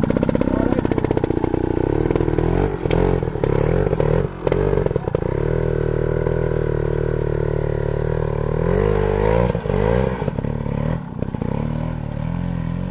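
Trials sidecar outfit's engine revving hard under load up a steep, muddy climb. The pitch rises and falls with the throttle, drops out briefly a couple of times, and fades near the end as the outfit crests the top.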